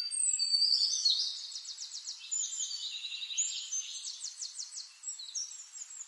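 Splendid fairy-wren singing: a high-pitched trilling song that starts abruptly. It has two runs of rapid, evenly spaced notes, about a second and a half in and again around four seconds in.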